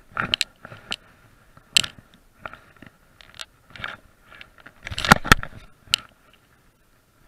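Irregular scraping and knocking of a fleece sleeve brushing against the camera, loudest in a cluster a little after five seconds in.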